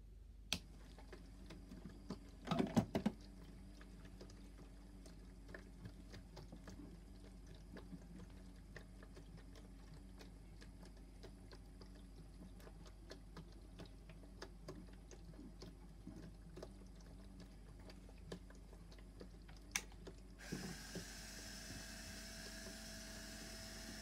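Light plastic clicks and knocks from a toy Miele washing machine being handled, with a louder cluster of knocks about three seconds in. Near the end a steady hiss starts as water is poured from a plastic jug into the top of the toy machine.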